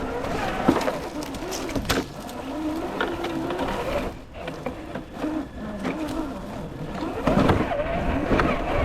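Traxxas TRX-4 1/10 scale RC crawler's electric motor and gearbox whining, the pitch rising and falling with the throttle as it climbs over rocks. Scattered sharp clicks and knocks come from the tyres and chassis striking the rocks.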